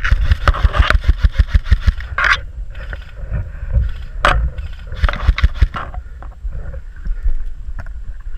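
Quick, uneven thuds and scraping, about six a second, from a body-worn action camera jostled as the player moves; two spells of it, with quieter scuffing in between.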